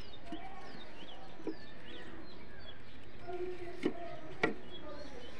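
Birds chirping with short falling calls, and two sharp clicks in the second half.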